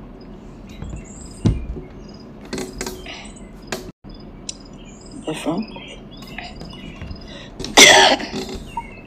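A woman's short, wordless vocal sounds, loudest about eight seconds in, with a bump of phone handling about a second and a half in. Faint bird chirps run in the background.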